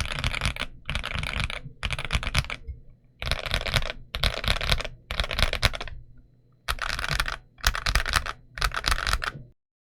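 Kzzi I75v2 low-profile White Rain mechanical keyboard being typed on in short, fast runs of keystrokes, about eight runs with brief pauses between them, stopping abruptly near the end.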